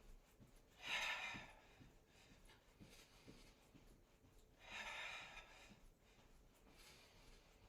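A woman breathing hard while hopping in place as though jumping rope: two long, audible breaths about four seconds apart, over faint soft thumps of her feet landing.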